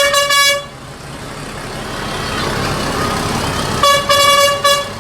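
Bus telolet horn sounding: one steady-pitched blast at the start, then three quick blasts about four seconds in. Between the blasts, vehicle noise slowly grows louder.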